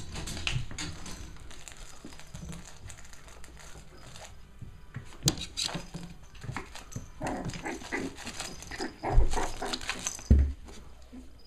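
Five-week-old Cavalier King Charles Spaniel puppies play-fighting, with small yips and scuffling throughout and two loud low thumps near the end.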